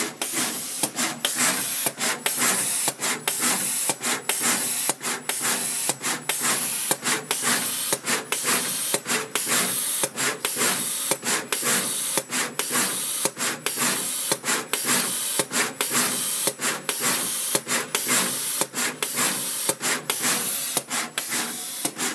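Surface-mount pick-and-place machine running: a steady loud hiss broken by short gaps about twice a second as its head places parts on the board.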